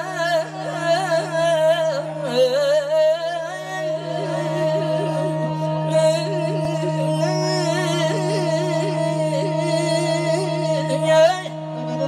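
Azerbaijani folk singing: a male singer draws out wordless, ornamented phrases with a wavering pitch into a microphone. Underneath runs a steady drone and instrumental accompaniment.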